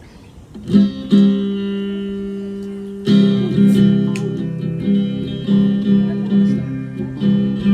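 Guitar starting a song: two strummed chords about a second in, the second left ringing, then steady rhythmic strumming from about three seconds in.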